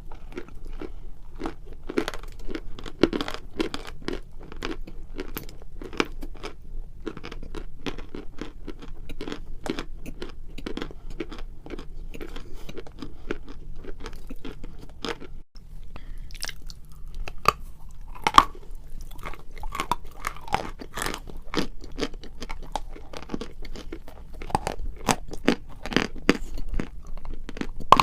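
Close-miked biting and chewing of lumps of chalk: a dense, irregular run of sharp, dry crunches, with a brief break about halfway through.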